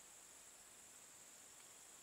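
Near silence: a faint steady hiss with a thin high-pitched buzz running through it.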